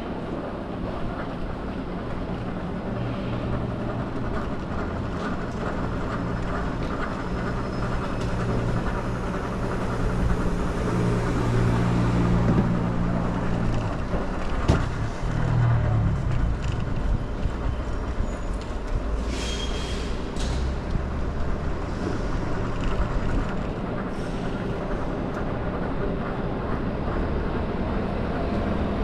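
City street traffic: a vehicle engine running close by with a steady low hum through the first half, a single sharp knock about halfway through, and a brief hiss about two-thirds in.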